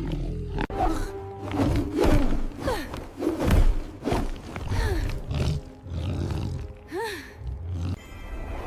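Dramatic background music with a large beast's roars and growls laid over it.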